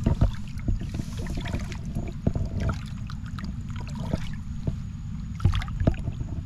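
Water sloshing and splashing at the shoreline as a large snook is held in the water and revived before release, with scattered splashes over a steady low rumble.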